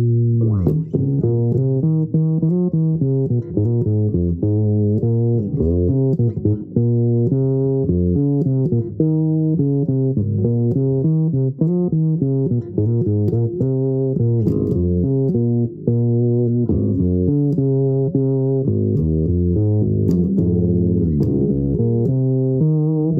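Fretless electric bass played fingerstyle: a continuous line of single low notes changing several times a second, with occasional slides gliding between pitches.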